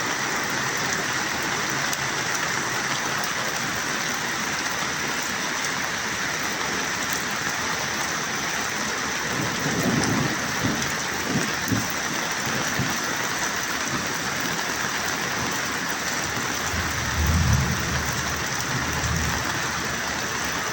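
Steady rain, with low rumbles about halfway through and again near the end.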